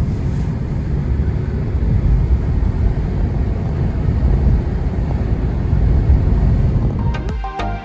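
Steady low rumble of road and engine noise inside a moving car. Music comes in near the end.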